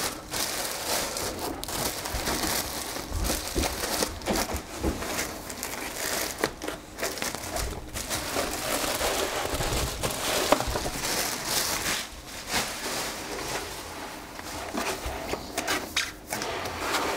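Clear plastic bag crinkling and rustling steadily as it is pulled off a 3D printer packed in foam blocks, with a few sharp handling knocks.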